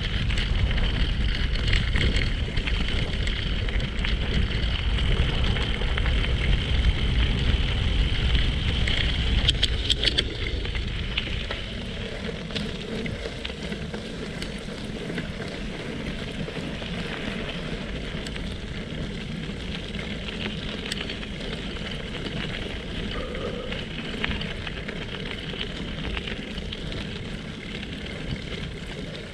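Tyres crackling and crunching over a gravel forest track, with wind rushing on the microphone. The wind is strong for the first ten seconds or so, then eases, leaving mostly the gravel noise.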